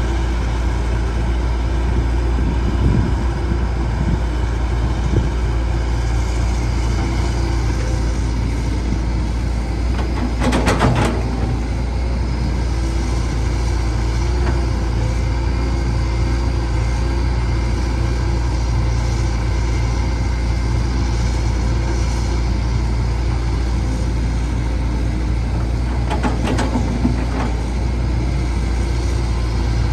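Caterpillar 312C excavator's diesel engine running steadily while it works loading trucks, with two brief louder bursts of noise, about ten seconds in and again near the end.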